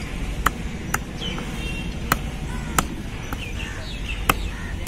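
Large fish-cutting knife chopping stingray meat into cubes on a wooden log block: about six sharp knocks of the blade striking the wood, at an uneven pace of roughly one every half second to second and a half.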